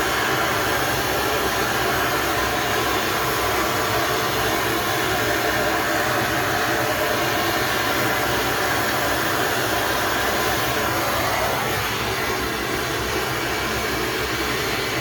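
Gas soldering torch burning steadily, its flame hissing as it heats a 35 mm copper pipe fitting before soldering.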